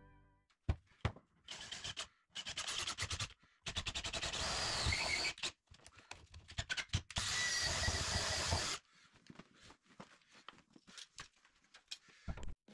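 Power drill boring a pilot hole through wooden wall cladding, running in four bursts of one to two seconds, with sharp clicks and knocks between them.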